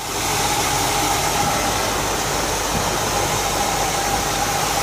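Cadillac Fleetwood's rebuilt V8 engine idling steadily, heard close up under the open hood, with an even whine running through the sound.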